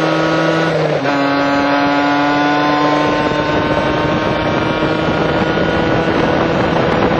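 Kawasaki KH500's air-cooled two-stroke triple under way, heard from on board with wind on the microphone. About a second in, a brief dip and a step down in pitch: it changes up a gear. Then the revs climb slowly while the wind noise grows.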